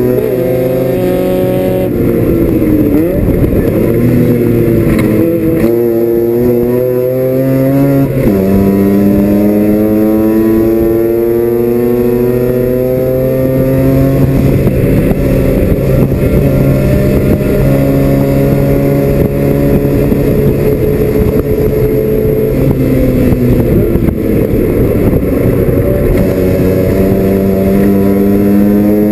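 Mazda RX-7 FC's 13B rotary engine running at racing speed, heard from inside the cabin, its note falling and climbing with braking and gear changes. The pitch drops sharply with an upshift about eight seconds in, climbs slowly and steadily for over ten seconds, then falls off and climbs again near the end, over a steady rush of road and wind noise.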